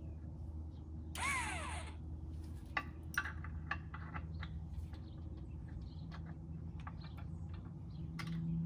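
Scattered metal clicks and clanks as a Z-Rator aerator attachment is worked into line on a stand-on mower, over a steady low hum. A single crow's caw falls in pitch about a second in, and a louder steady hum starts near the end.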